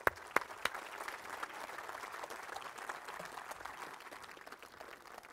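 Audience applauding, with a few sharp claps at the start, then a dense patter that slowly dies down.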